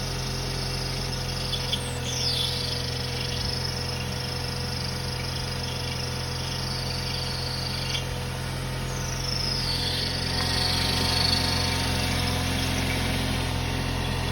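Volkswagen Jetta 1.8 TSI engine running with a high-pitched whine from the alternator belt tensioner pulley, dipping in pitch twice, once about two seconds in and again about nine seconds in. The noise is the sign of a failing tensioner pulley; it was cured by replacing the pulley with its tensioner assembly.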